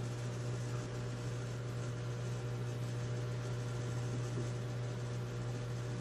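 Microwave oven running a heating cycle: a steady low hum.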